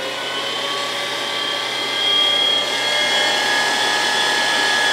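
Electric meat grinder running, its motor whining steadily as it forces beef through a coarse grinding plate. The pitch and loudness rise slightly about two seconds in.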